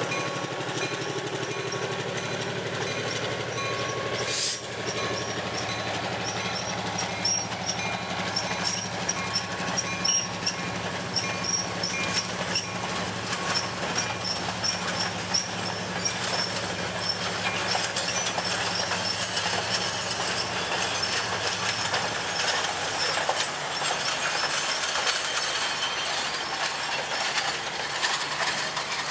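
Freight cars, caboose and passenger coaches of a short train rolling past, their wheels clicking over the rail joints in a regular rhythm. A low diesel engine drone from the locomotive ahead runs under it and drops away about three-quarters of the way through.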